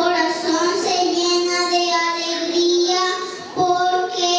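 A young girl singing into a handheld microphone, holding long, steady notes with a short break about three and a half seconds in.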